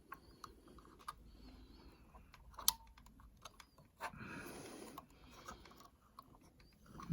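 Faint small clicks and taps of a plastic pry tool and small parts being handled inside an opened iMac, with one sharper click near the middle and a brief scraping rustle about four seconds in.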